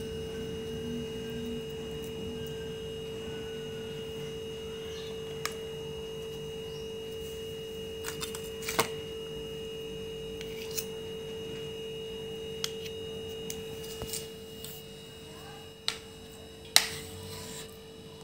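Steel spoon clinking and scraping against a steel bowl and a ceramic plate as semolina halwa is scooped and spread, a few light clicks at irregular intervals with the loudest clink and a short scrape near the end. A steady humming tone runs underneath.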